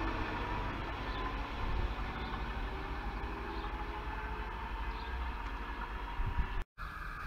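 A DB Class 425 electric multiple unit running away along the track: a steady low rumble of wheels on rail with a faint whine, slowly fading. Near the end the sound cuts out for a moment and a different steady noise starts.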